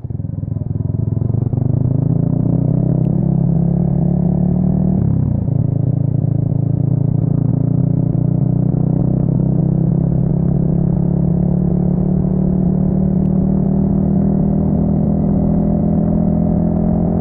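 Yamaha XSR155's single-cylinder four-stroke engine, breathing through an aftermarket full exhaust, pulling under acceleration. Its note climbs steadily, breaks briefly for a gear change about five seconds in, then climbs again until a second shift at the very end.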